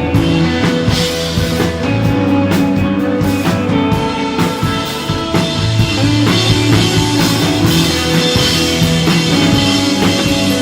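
Instrumental desert rock played live by an electric guitar, bass and drum kit trio: held bass notes under ringing guitar lines and a steady beat of drum hits.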